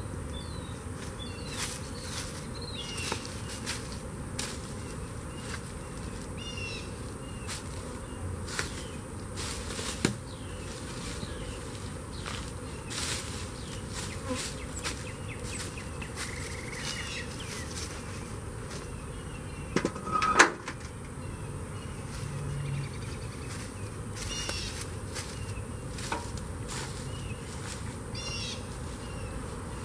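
Honeybees buzzing around an open hive, individual bees droning briefly as they fly past. Small birds chirp now and then, and a couple of sharp knocks sound about twenty seconds in.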